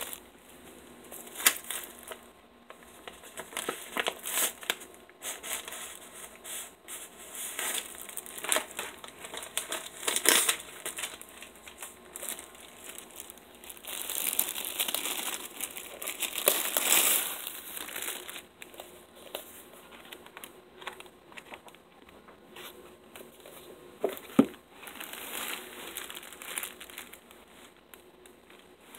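Plastic shrink wrap crinkling and tearing in irregular bursts as it is peeled off a paperback book, with a couple of sharp knocks.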